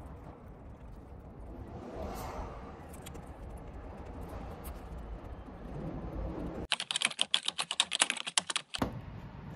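A rapid run of sharp clicks or taps, about ten a second, lasting about two seconds near the end, after several seconds of low background noise.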